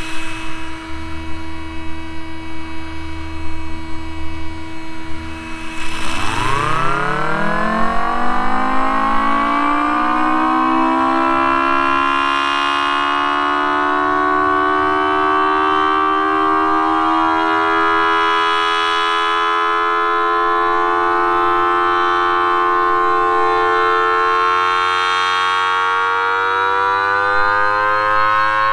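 Homemade miniature Thunderbolt-style siren with a 4-5 port rotor, supercharged by an air-mattress blower. For about six seconds there is a low rumbling hum; then it winds up quickly and settles into a steady, loud two-tone wail. The wail swells about every six seconds as the rotating horn sweeps past.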